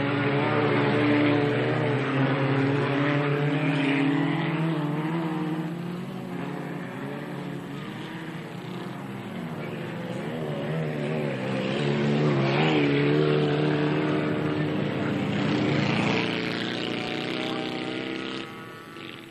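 Engines of racing saloon cars revving hard on a dirt autocross track, with pitch rising and falling and loudness swelling as cars pass. The sound drops away suddenly near the end.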